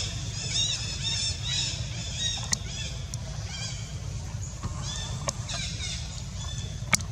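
Rapid series of short, high-pitched animal calls that rise and fall, about three a second, in bursts. A sharp click sounds near the end over a steady low rumble.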